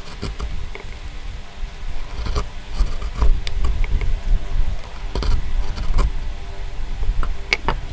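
Hand chisel paring the edge of a small wooden block, a series of irregular short cutting strokes as shavings peel off, the sharpest near the end, over a low rumble.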